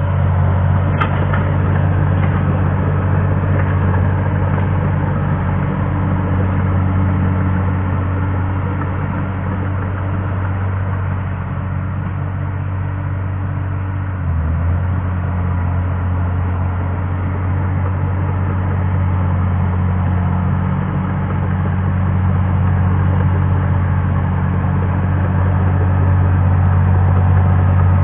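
Caterpillar bulldozer's diesel engine running steadily with a deep, low hum, briefly changing note about halfway through.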